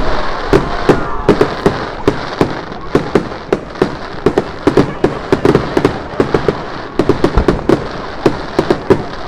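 Fireworks display: a dense, irregular barrage of sharp bangs and crackles, several a second.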